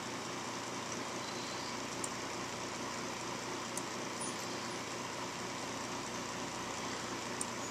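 Steady indoor room noise: an even hiss with a low hum under it, like a fan or heater running, and a few faint ticks.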